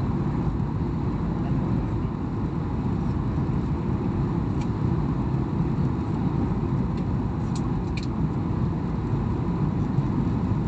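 Steady roar of an airliner cabin on final approach: engine and airflow noise heavy in the low end, with a faint steady whine and a few light clicks partway through.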